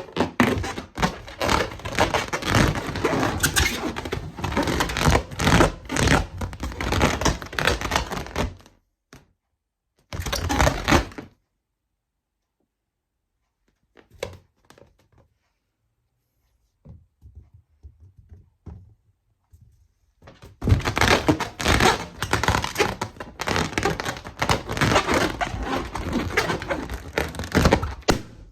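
Rubber balloons being handled: a dense, rapid run of rubbing, knocking and crinkling sounds in two long stretches, with a short burst about ten seconds in and scattered light taps in between.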